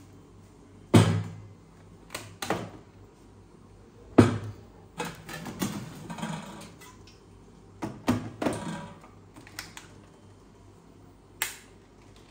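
Stainless-steel and aluminium kitchen vessels, lids and mixer-grinder jars being handled and set down on a counter: a string of sharp metallic clanks and clatters, loudest about a second in and again about four seconds in, with a few quicker rattles in between.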